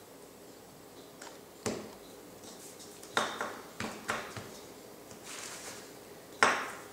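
A round biscuit cutter knocking and tapping against the pastry mat and countertop as biscuits are cut from the dough. There are about half a dozen sharp taps, several close together in the middle and the loudest near the end, with a brief rustle between them.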